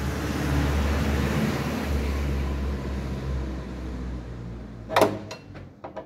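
A steady low mechanical hum and hiss, then one sharp knock about five seconds in, followed by a few lighter clicks. The knocks come from T-handle wrench work on a loose 10 mm bolt of a backhoe cab door lock.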